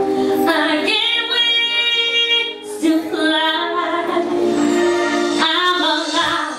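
A female solo singer sings three long held notes, with short breaks between them.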